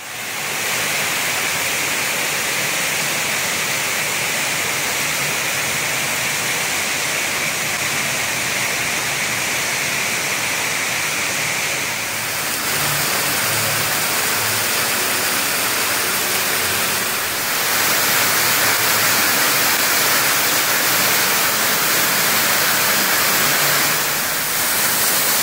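Rushing water of an underground waterfall, a loud, steady hiss that shifts in tone about twelve seconds in and grows a little louder about five seconds later.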